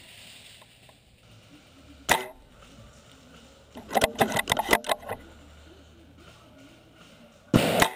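Airsoft gunfire: a single sharp shot about two seconds in, a fast string of about ten cracks around the middle, and a louder shot near the end.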